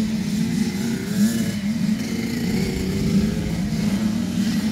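Several small motocross bikes running together at the starting gate, their engines revved and held at a fast idle, with pitches wavering up and down, while they wait for the start.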